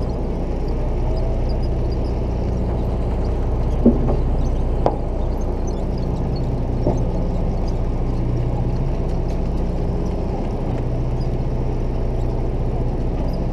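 Fishing boat's engine droning steadily, with a couple of sharp knocks about four and five seconds in.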